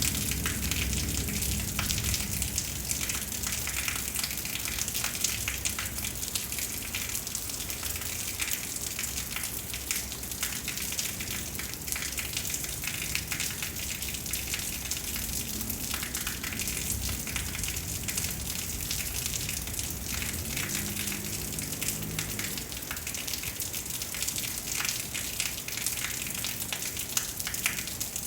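Steady heavy rain from a thunderstorm, a constant hiss with many distinct drop hits close to the microphone.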